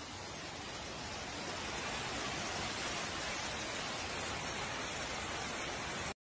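Floodwater rushing down the stairs of an underground station and across its floor, a steady rush of water. It cuts off suddenly just before the end.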